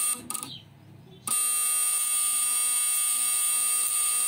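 Homemade battery-powered high-voltage electrofishing booster energised: two short crackles, then about a second in a loud, steady high-pitched electrical buzz starts and holds.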